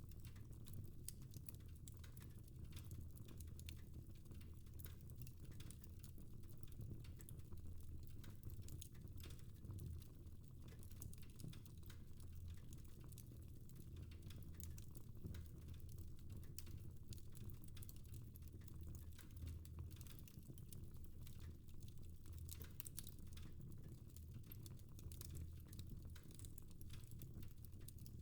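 Fire in a fireplace crackling: a steady run of small, irregular pops and snaps over a low, even rumble.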